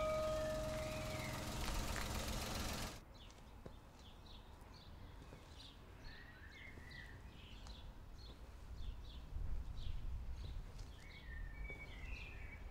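A chime-like tone dies away over a steady rushing noise that cuts off abruptly about three seconds in. After that, small birds chirp and sing over quiet outdoor ambience.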